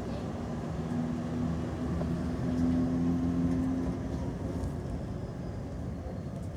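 Amsterdam tram running, heard from inside the car: a steady low rumble of the ride, with a low steady hum over it that stops about four and a half seconds in.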